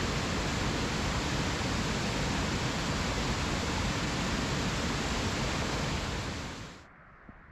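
Waterfall: a steady rush of falling water pouring over a rock ledge into a pool, which falls away quickly near the end.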